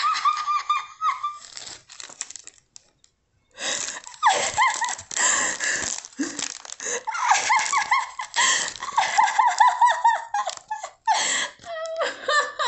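A woman laughing hard in long fits of rapid, high-pitched ha-ha pulses, breaking off into a short silence about three seconds in.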